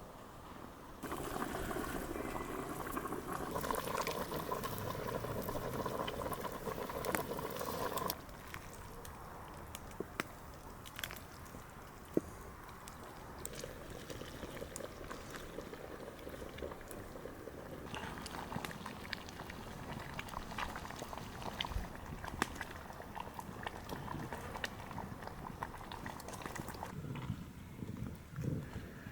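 Liquid sounds from cooking soup: a louder, steady pour or bubble starts about a second in and stops abruptly after about seven seconds. It is followed by quieter liquid noise with scattered sharp clicks.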